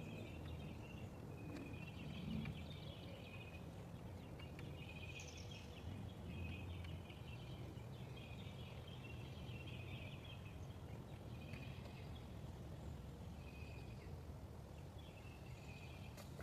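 Faint birds chirping over a low steady rumble of outdoor background noise.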